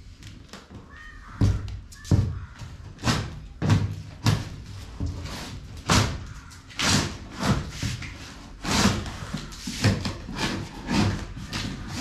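A large cardboard bicycle box being opened by hand: irregular thumps and knocks of the cardboard flaps, some with a short scrape, about one or two a second.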